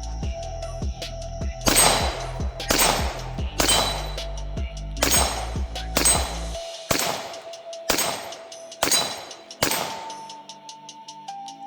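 Handgun fired nine times at about one shot a second, each shot trailing off in a short ring, over background music with a beat and bass.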